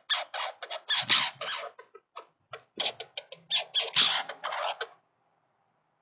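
Douglas squirrel chattering in fast bursts of rapid clicking notes, a territorial scolding at a rival squirrel. The chatter comes in two bouts and stops about five seconds in.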